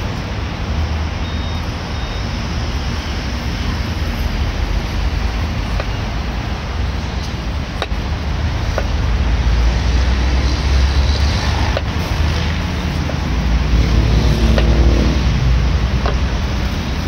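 Steady road traffic rumble that swells twice in the second half as vehicles pass, with a few faint knife taps on a wooden cutting board.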